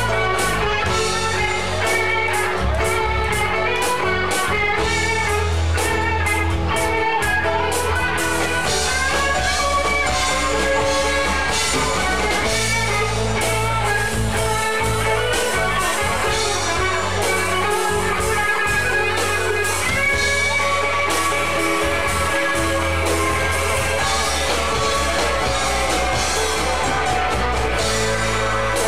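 Live rock band playing an instrumental passage with no vocals: electric guitar over keyboard and drum kit.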